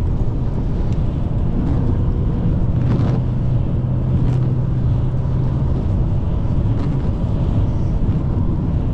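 A car being driven, heard from inside the cabin: a steady low rumble of engine and road noise, with a low engine hum holding steady for a few seconds in the middle.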